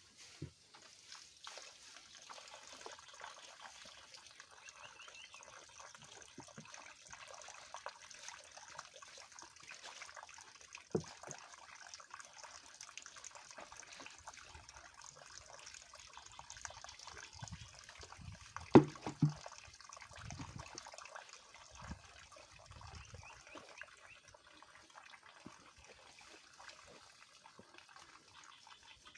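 Steady trickling water, with scattered small clicks and one short, loud low-pitched sound about two-thirds of the way through.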